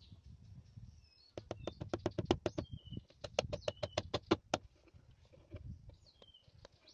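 Claw hammer tapping a small metal bag clasp into place on a wooden board: two quick runs of light, sharp taps, about seven a second, each run lasting about a second. Faint birdsong chirps in the background.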